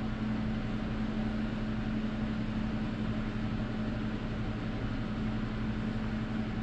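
Steady low hum with an even hiss from a running fan motor.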